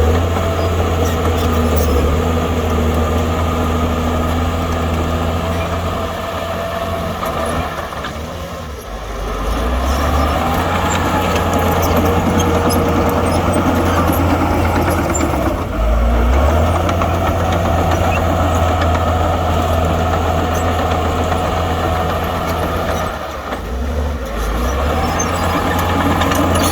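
Diesel engine of earthmoving machinery running under load, its note easing off and picking up again three times.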